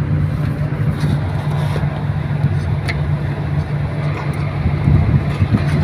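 A steady low engine hum with a couple of faint light clicks.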